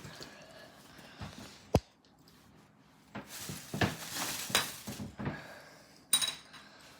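Slime being handled and mixed: irregular squishing noises, with a sharp click just under two seconds in and a brief ringing clink about six seconds in.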